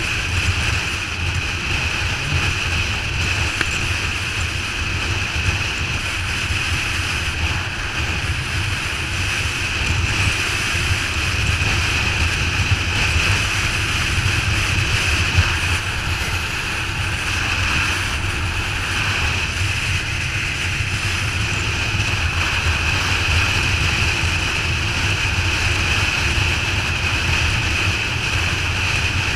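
Motorcycle cruising at a steady speed: a low engine drone under a loud, steady rush of wind on the microphone.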